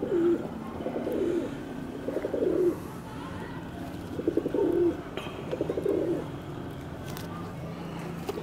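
Domestic pigeons cooing: about five short rolling coos a second or so apart, several ending on a falling note, with a pause in the middle.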